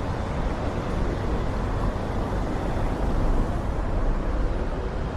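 Steady low rumble and rush of wind buffeting the Insta360 X4's microphone under its wind protection, swelling a little midway.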